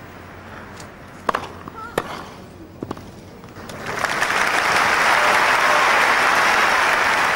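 A tennis ball struck back and forth on a grass court, a few sharp pops about a second apart. About four seconds in, the crowd breaks into loud, steady applause for the point that wins the game.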